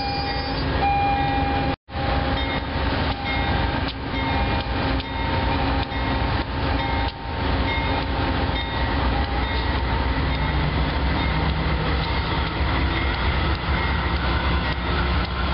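Amtrak passenger train rolling past at a platform, then Amtrak GE P42 diesel locomotives, their engines rumbling steadily, with the wheels knocking over rail joints at an even pace. A low engine hum grows stronger in the second half.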